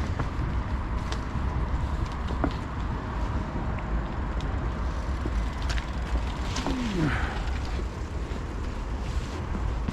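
Steady low rumble of wind and tyres on an action camera's microphone while cycling along a path, with scattered clicks and knocks and one short falling squeal about seven seconds in.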